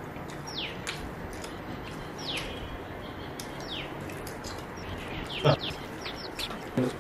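Bird calls: short chirps, each sliding quickly down in pitch, repeated every second or two. Faint clicks run under them, and a single sharp knock comes about five and a half seconds in.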